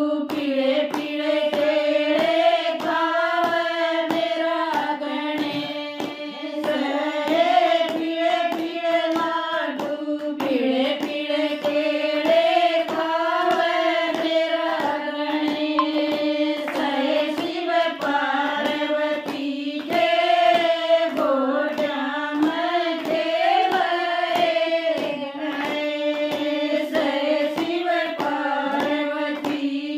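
A group of women singing a Hindu devotional bhajan to Ganesh together, keeping time with a steady beat of hand claps, about two a second.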